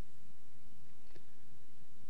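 Room tone: a low steady rumble, with one faint click just past the middle.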